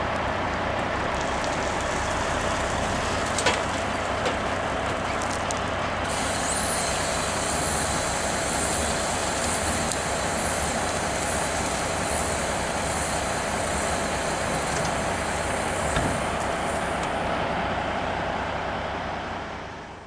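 Semi-truck diesel engine running steadily, with a single sharp knock about three and a half seconds in. From about six seconds in, a faint high squeak repeats roughly once a second; the sound fades out near the end.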